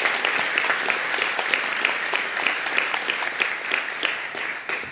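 Audience applauding, many hands clapping steadily, thinning a little near the end.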